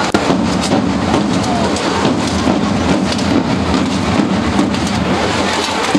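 Loud, steady crowd noise: many people talking at once in a dense hubbub, with faint clicks and shuffles mixed in.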